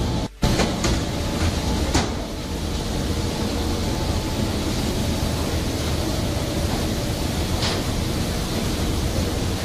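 Steady rumble and hiss of a fishing vessel under way at sea, engine and wind or water noise together, with a few faint knocks. The sound drops out for a moment just after the start.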